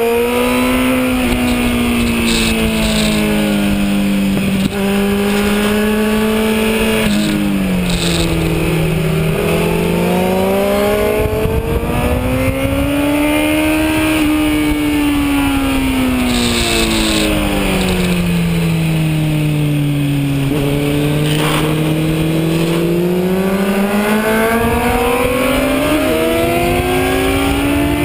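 Kawasaki Z1000's inline-four engine heard from onboard under track riding, its pitch climbing under acceleration, stepping down around seven seconds in, falling to its lowest around twenty seconds in, then rising again under hard acceleration. A steady rush of wind noise runs underneath.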